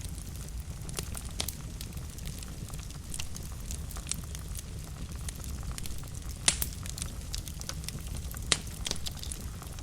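Wood fire burning in a fireplace: a steady low rumble with scattered sharp crackles and pops, two of them louder, about six and a half and eight and a half seconds in.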